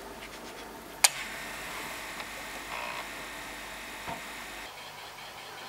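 Commodore 1541 floppy disk drive powering up: a sharp click about a second in, then a steady electric hum from the running drive that drops away near the end.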